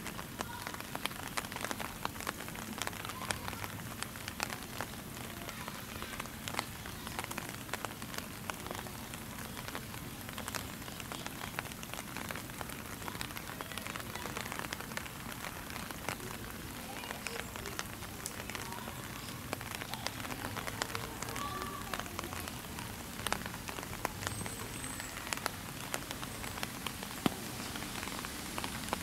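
Steady rain falling, with many sharp ticks of drops striking nearby surfaces.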